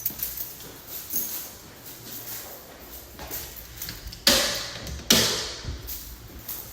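Two sharp knocks a little under a second apart, each dying away over about half a second, amid faint handling noises.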